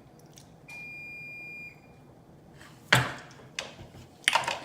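An electronic beep held steady for about a second, then a loud crunchy bite about three seconds in and more crunching and mouth sounds near the end.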